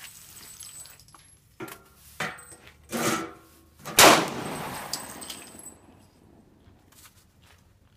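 A single pistol shot about four seconds in, sharp and dying away over about a second and a half. A few softer knocks come before it.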